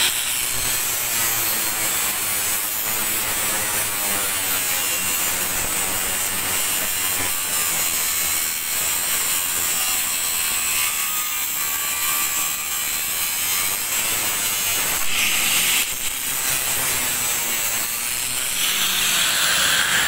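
Electric angle grinder with a cutting disc cutting through a steel T-bar beam: a steady, high-pitched grinding screech. It turns harsher and louder briefly about fifteen seconds in and again near the end.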